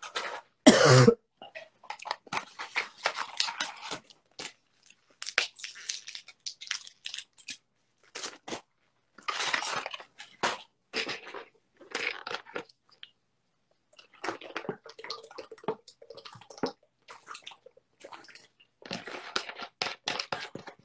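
Irregular crinkling and crunching of medicine packaging handled close to the microphone, in short bursts, the loudest about a second in, as antibiotic tablets are got out to be taken.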